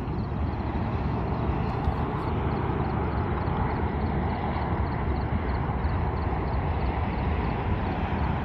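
Steady low outdoor rumble, with a faint high ticking that repeats about four times a second.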